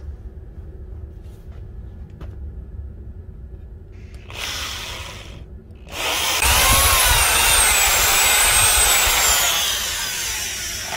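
Drill press boring through a knife's steel tang and wooden handle scale. A short burst of drilling about four seconds in, then a longer, loud spell of drilling from about six seconds in, carrying a high whine that slowly falls in pitch and eases off near the end.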